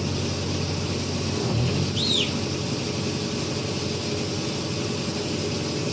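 A heavy machine's engine running steadily in the background, with one short rising-and-falling chirp about two seconds in.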